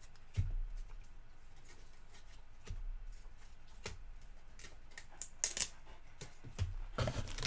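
Trading cards and a foil card pack being handled: scattered soft clicks and rustles with a few dull knocks, getting busier in the second half.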